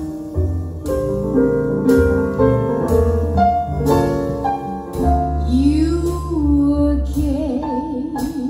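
A vinyl record playing on a Zorin TP-S0 turntable through bookshelf speakers: a song that opens with piano chords struck about once a second, with a singing voice with wide vibrato coming in about halfway through.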